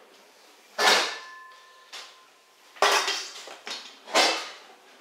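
Metal lid set down on a stainless steel mixing bowl, a clank that rings on for about a second, followed by three more metal clanks and knocks as the bowls are handled on the counter.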